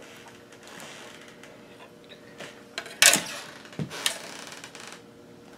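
Handling noises on a workbench: light rustling and scraping, then a sharp clack about three seconds in and two lighter knocks as a circuit board is picked up and moved.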